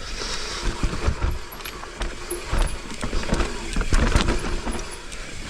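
Mountain bike descending a steep dirt trail: tyres rolling over dirt and roots, with repeated clicks and knocks from the bike rattling over bumps and wind rumble on the microphone.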